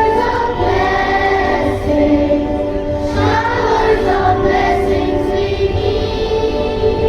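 School choir singing a prayer song together, the voices holding long, sustained notes.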